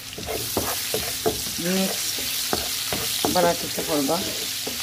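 Sliced onions sizzling in hot oil in a frying pan while a wooden spatula stirs them, knocking and scraping against the pan now and then.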